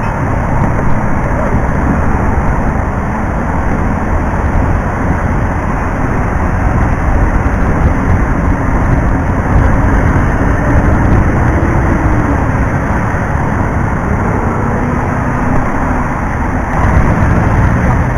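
Wind and road noise, very loud, hitting a helmet-top external microphone while riding a Honda Click scooter in traffic, with a steady rumble of engine and traffic underneath and a faint engine tone that rises and falls around the middle. The noise is the sign that the mic still picks up too much wind.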